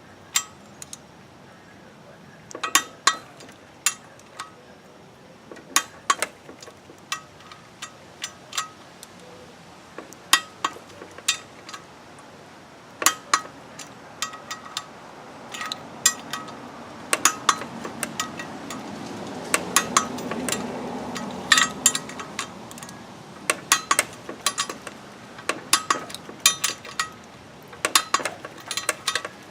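Sharp metallic clicks and clinks of a wrench and socket on bolts being torqued down. They come irregularly, several close together at times, with a low hum swelling in the middle.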